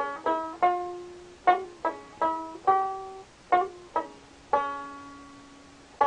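Dotara, the Bengali long-necked plucked folk lute, playing a slow folk melody: single plucked notes, about ten of them, the last one about three-quarters of the way in left to ring out and fade.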